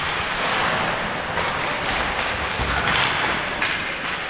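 Ice hockey play on the rink: a steady scraping hiss of skate blades on the ice, broken by several sharp clacks of sticks and puck.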